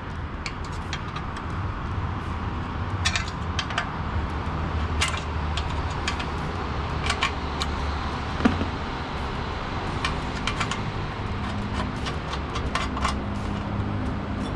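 Scattered small clicks and light metallic rattles of hands and a tool working a motorcycle fuel pump and float assembly loose from its tank flange, with one sharper click about eight and a half seconds in, over a steady low hum.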